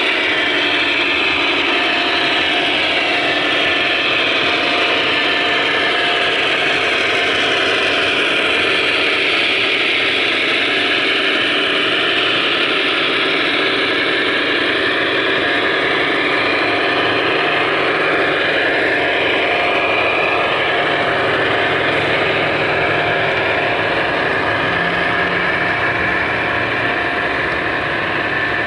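Sound-equipped HO scale model diesel locomotive running under power, its speaker playing a steady diesel engine drone as the train rolls by.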